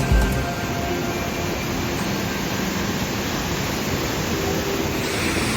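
Steady roar of a waterfall: a 12-metre cascade on a fast mountain stream plunging into its pool.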